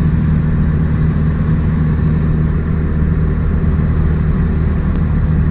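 Small propeller plane's engine running steadily, heard from inside the cabin: a constant low drone with an even hum.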